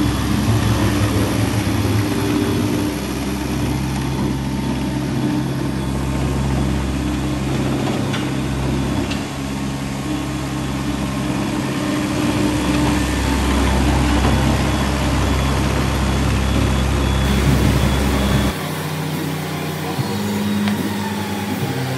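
Engine of a remote-controlled tracked cargo loader running steadily while the machine drives. About eighteen seconds in, the deepest part of the hum drops away and a different, lighter engine note takes over.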